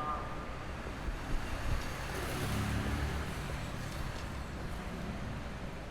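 Low, steady rumble of night-time street traffic, with a vehicle swelling past about two seconds in and fading away.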